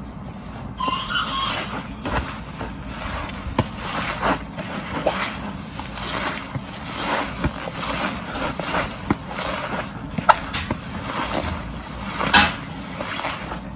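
Hands rubbing and squeezing wet, salted cassava leaves against a plastic basin in repeated uneven strokes, with one louder stroke near the end. The leaves are being rubbed to soften them before cooking.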